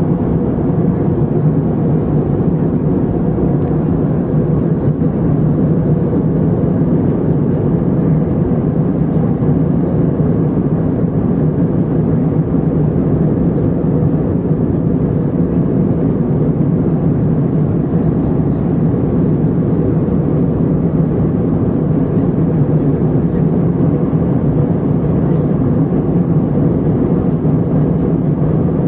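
Steady cabin noise of an Airbus A320 in flight: a constant low drone of engines and rushing air, unchanging throughout.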